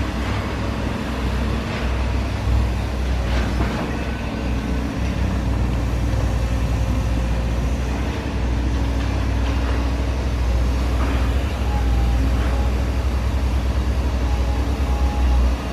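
Volvo tracked excavator's diesel engine running with a steady low rumble as the machine slews round and moves off, with a few knocks from the machine along the way.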